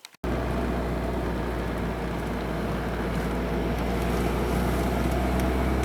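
Volvo car driving: steady engine and road noise, with a strong low hum, starting abruptly just after the beginning.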